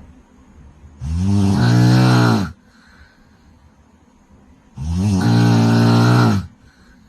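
A woman snoring loudly: two long, low-pitched snores of about a second and a half each, one starting about a second in and the next near five seconds in, with a quiet pause between.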